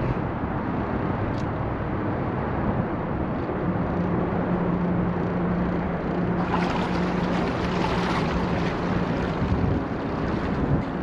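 Twin engines of a 1999 Carver 504 motor yacht running at slow no-wake speed, heard under wind and water rush. A steady hum sets in a few seconds in, and a louder hiss rises for about three seconds past the middle.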